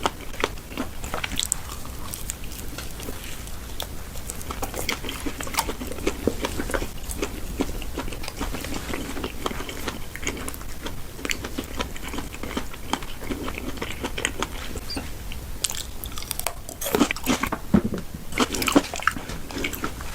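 Close-miked eating: crunchy bites and wet chewing, with a louder, denser run of crunches near the end.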